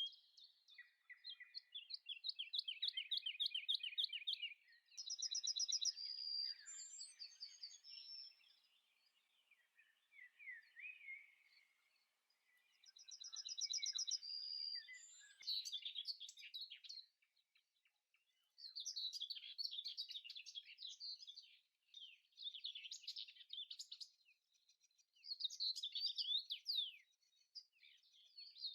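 Birdsong: several birds chirping and trilling in high-pitched phrases a few seconds long, with short pauses between them.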